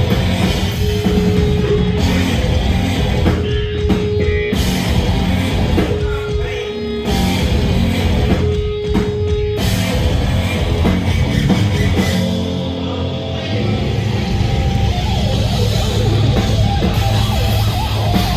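Live rock band playing loud: distorted electric guitar over a drum kit, through the venue's PA and recorded from the crowd. A held note comes back every couple of seconds in the first half, with short breaks in between.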